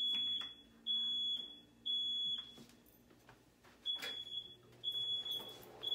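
Smoke alarm beeping in the three-beep pattern: three high half-second beeps about a second apart, a pause, then three more. It has been set off by cooking in the kitchen.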